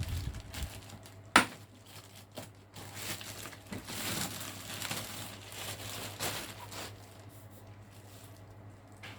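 Packaging being handled, crinkling and rustling in irregular spells, with one sharp click about a second and a half in; the rustling fades out in the last couple of seconds.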